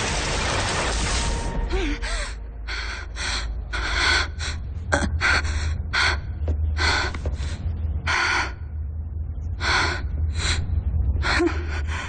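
A woman panting, quick gasping breaths every half second to a second. This follows a rushing whoosh that stops about a second and a half in, and a low steady hum runs underneath.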